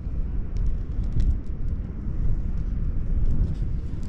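Wind buffeting the microphone: a steady low rumble, with a few faint small ticks above it.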